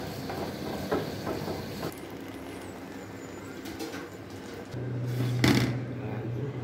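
Restaurant kitchen work sounds: light clicks and clatter of cookware, then a steady low hum that starts a little past the middle, and one loud sharp knock about two-thirds through.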